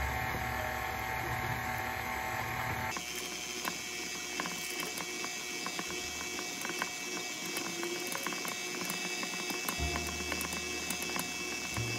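Stand mixer running on low speed, its paddle attachment turning through flour and butter chunks in a steel bowl. It makes a steady motor whir, with a fast, even clicking rattle from about three seconds in.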